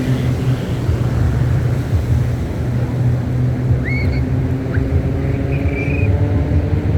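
Piston engine and propeller of a single-engine aerobatic plane droning steadily as a low, even rumble at a distance. A few short high chirps come about four and six seconds in.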